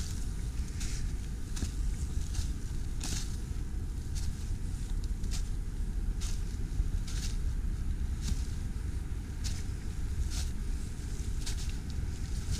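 Footsteps on snow-dusted ground with dry grass and twigs, about one step a second, over a steady low rumble.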